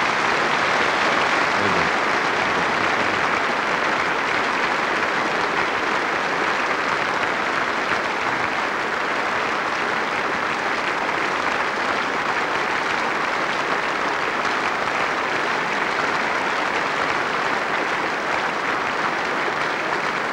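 Large audience applauding in a long, steady round of clapping.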